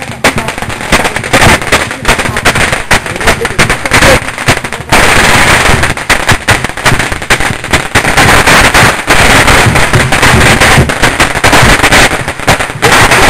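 Long strings of firecrackers going off in a dense, continuous rattle of rapid bangs, very loud. The crackle thickens to an unbroken barrage about five seconds in.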